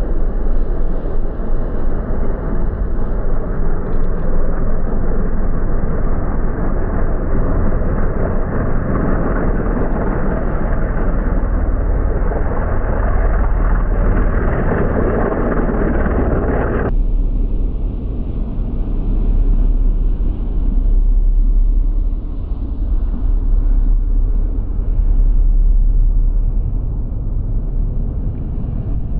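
Four Wright R-3350 radial engines of a B-29 Superfortress, a loud steady drone as the bomber lifts off and climbs past, swelling as it comes closest. About 17 seconds in the sound cuts abruptly to a duller, more distant engine drone as the bomber flies toward the listener with its gear down.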